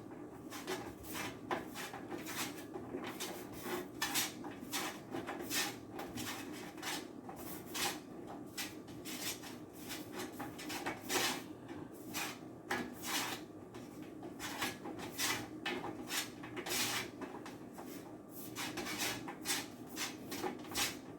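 Shiitake mushroom pieces being tossed in olive oil: a steady run of irregular soft scraping and rustling strokes, about one or two a second.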